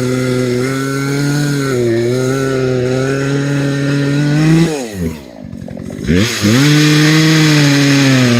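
Gas chainsaw engine running at high revs. A little under five seconds in, the revs fall sharply and the saw runs lower and quieter for about a second, then climbs back to full speed.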